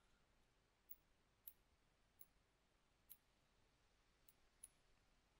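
Faint computer mouse clicks, about six scattered short clicks over near silence.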